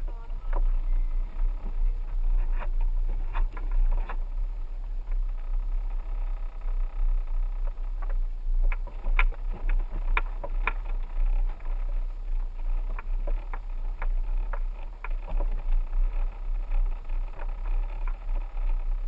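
A 4x4 truck rolling slowly over a rough dirt road: a steady low rumble with scattered knocks and rattles.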